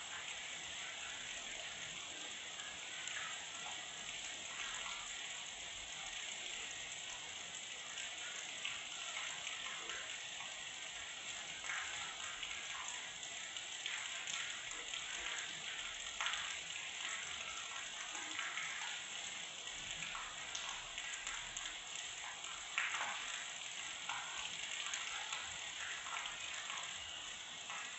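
Steady rain falling, with scattered louder drops and splashes.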